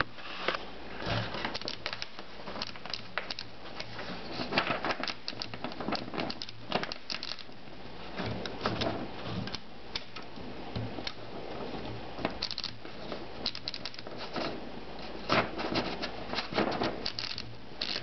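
Scattered mechanical clicks, taps and rustling as a 1921 Corona 3 typewriter is handled, coming in irregular clusters.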